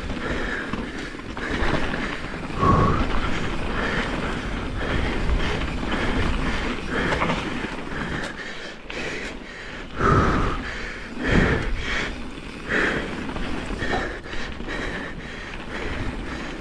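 Full-suspension enduro mountain bike on Continental Kryptotal tyres rolling fast down a dirt singletrack, heard from a helmet chin-mounted camera: steady tyre rumble and rattle over the ground, with louder jolts every few seconds.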